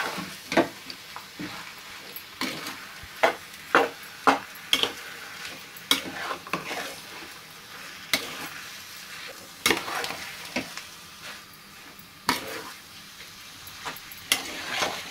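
Spoon stirring and mashing spiced potato filling in a frying pan, with irregular knocks and scrapes of the spoon against the pan over a faint sizzle.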